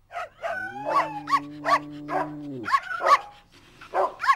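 Cartoon dog yipping and barking: a quick series of short, high barks, over a steady low tone that lasts about two seconds in the first half.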